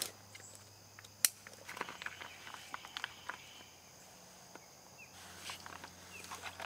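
Scattered plastic clicks and rustles as a collapsible gravity-filter water bag and its hose are handled, with one sharp click about a second in. A steady high insect drone and a few short bird chirps run behind it.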